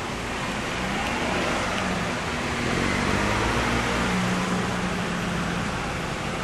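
Road traffic: cars driving past close by, a mix of engine hum and tyre noise that swells to its loudest around the middle and eases off near the end.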